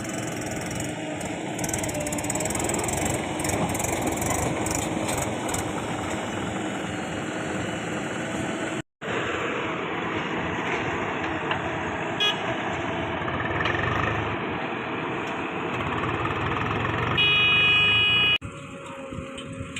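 Diesel engines of a backhoe loader and tractors running steadily, with a brief break about nine seconds in. A vehicle horn sounds for about a second near the end.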